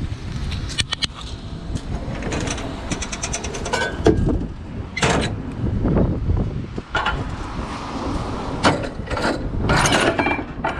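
Wind buffeting the microphone with a low rumble, over a series of metallic clanks and rattles, including a quick run of clicks about three seconds in.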